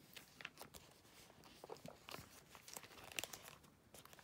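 Faint crinkling and small clicks of baseball cards and their plastic sleeves being handled, in scattered short rustles.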